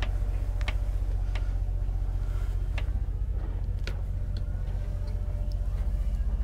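Scattered light knocks and clicks, about half a dozen, from footsteps and handling as a person climbs down through a deck hatch into an engine room, over a steady low rumble with a fast pulsing.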